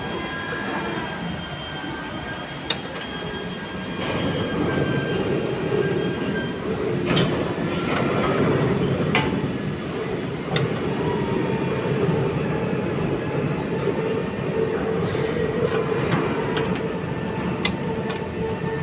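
Factory machinery running: a steady dense rumble with thin high whining tones over it, and a few sharp metallic clanks.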